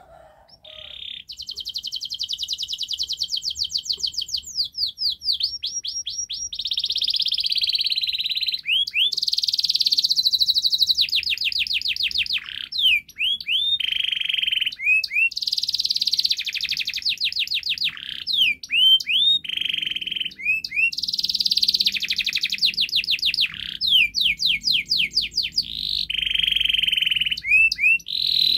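Domestic canary singing a long, unbroken song of fast trills and rolls, with rapid up-and-down swooping notes between held buzzy rolls, high-pitched throughout; it starts about a second in.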